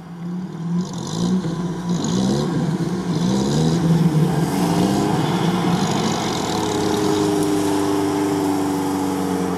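Lada Niva's engine revving up and down in repeated surges as it pushes through deep mud with its wheels churning, then held at steady high revs from about two-thirds of the way in.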